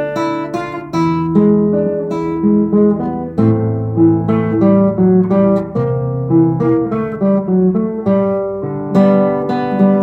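Solo acoustic guitar playing an instrumental piece, plucking and strumming chords with a melody line ringing over them.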